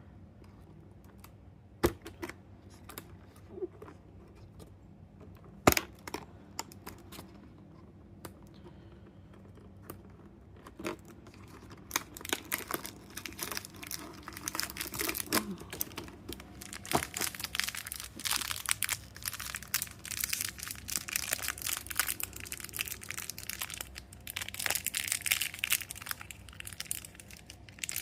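A few sharp clicks and taps, then from about twelve seconds in, continuous crinkling and tearing of packaging as a blind-box toy is opened.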